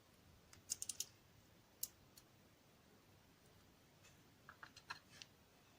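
Light clicks of small metal lock pins, the American 1100's serrated spool driver pins, being picked up and set down on a surface: a quick cluster of clicks about a second in, two single clicks around two seconds, and a few more near the end, with near silence between.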